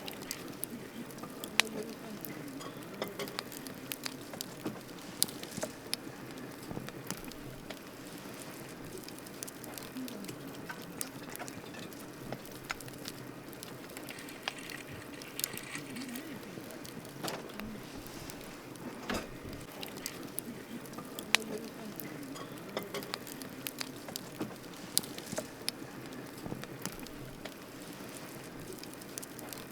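Wood campfire crackling: irregular sharp pops and snaps, a few much louder than the rest, over a steady low rush of the burning fire.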